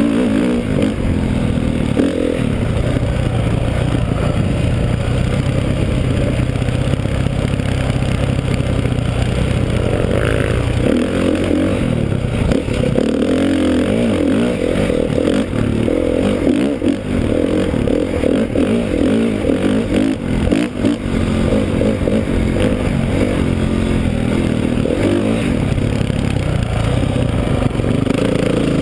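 Dirt bike engine heard from the rider's helmet camera, running fairly steadily for about the first ten seconds, then rising and falling with the throttle over the rough trail.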